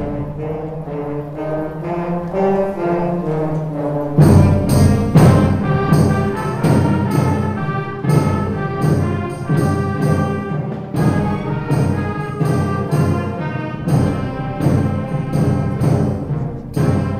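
A school wind band with brass playing: a softer melodic passage, then the full band comes in about four seconds in, louder, with percussion strokes marking a steady beat.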